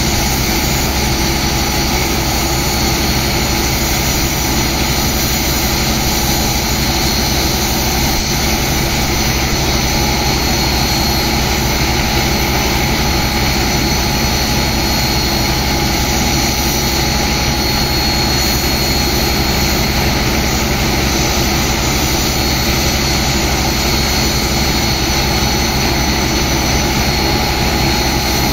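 Engine-driven water pump running steadily under load, with the hiss of high-pressure water jets blasting sand loose.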